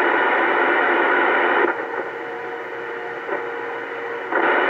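Static hiss from a Uniden Bearcat 980 CB radio's speaker on channel 28 AM, the 11-metre band open for distant skip. The hiss drops abruptly to a softer level with a faint steady tone after about a second and a half, then jumps back up loud near the end.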